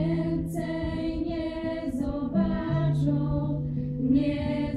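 Small group of young women singing a song together in harmony, accompanied by an acoustic guitar.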